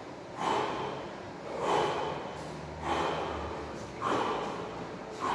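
A man breathing hard from exertion during a high-intensity workout: loud, heavy breaths, about one every second and a quarter.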